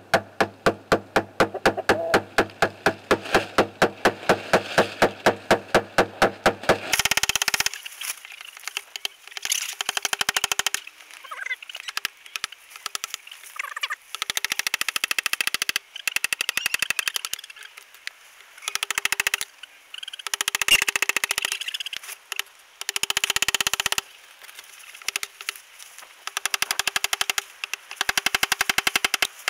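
Rubber mallet striking a long-bladed scraper, chipping ice off a wooden chicken ramp. An even run of about five strokes a second for the first seven seconds, then bursts of much faster rattling strikes with a ringing tone, broken by short pauses.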